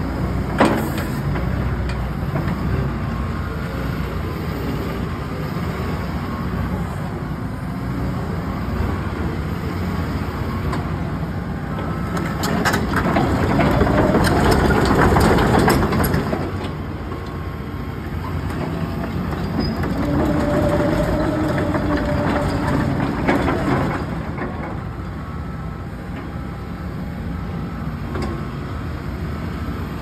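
Cat 312E hydraulic excavator running on its diesel engine as the boom and arm work and the machine moves on its tracks. About halfway through it grows louder for a few seconds with clanking knocks. A few seconds later a steadier whine comes in.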